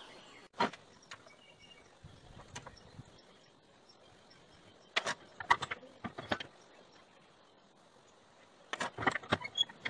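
Sharp metal clicks and knocks of a railroad spike and a steel bar being handled at a bench vise. They come in a few short clusters over a quiet background, the busiest near the middle and near the end.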